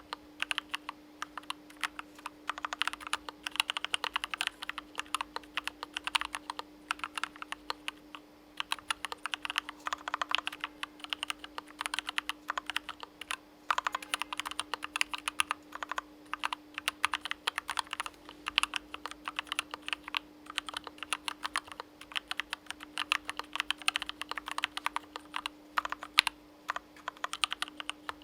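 Continuous typing on a KBDfans Mountain split ergonomic mechanical keyboard, which has an aluminum top-mount case and an aluminum plate: a dense stream of key clacks with a few brief pauses. A faint steady hum runs underneath.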